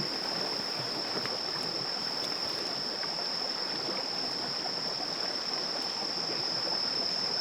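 A forest stream running and burbling, with insects keeping up a steady high trill over it.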